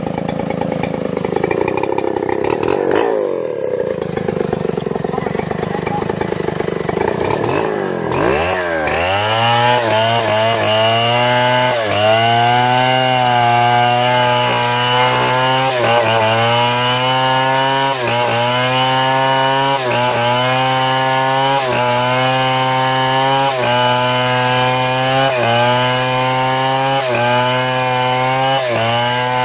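Chainsaw cutting wood. For the first several seconds it is a rough, noisy running sound. From about eight seconds in, a steady engine note sags and picks up again about every two seconds as the chain bites under load.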